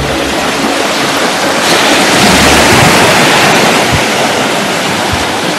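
Gentle Mediterranean waves breaking and washing up a sandy beach. The surf swells to its loudest about halfway through, then eases off.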